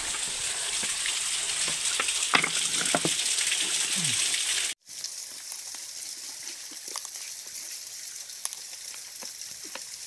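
Steady hiss of a small mountain stream's flowing water, with scattered clicks of stones and gravel being shifted by hand. The sound cuts out abruptly a little under five seconds in and returns quieter.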